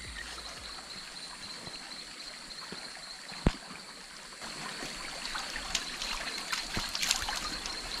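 Stream water flowing and trickling, with a steady high-pitched tone over it and one sharp click about three and a half seconds in.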